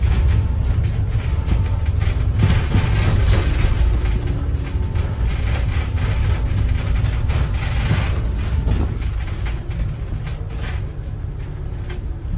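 Double-decker bus under way, heard from inside the upper deck: a steady low engine and road rumble that eases off somewhat after about nine seconds.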